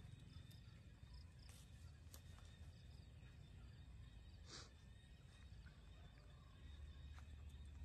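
Near silence: faint outdoor ambience with a low rumble and a few faint ticks, and one short, slightly louder noise about four and a half seconds in.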